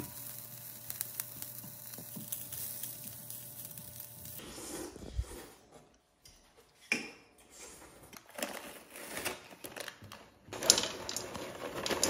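Kitchen sounds of food being handled. A ladle works rice into broth in a pot over a steady hum and hiss for the first few seconds. Scattered clatter follows, and near the end popcorn is poured from a paper bag into a stainless steel bowl.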